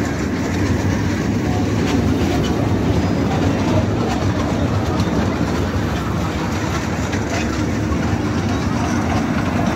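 Steady low rumble of machinery under the general murmur of a dense crowd at an outdoor fair.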